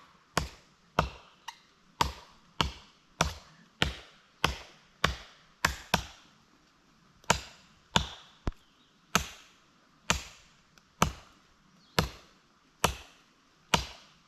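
Small hatchet chopping into wood: about twenty sharp, solid strikes in a steady rhythm, roughly one every half-second or so, with a brief pause about halfway through.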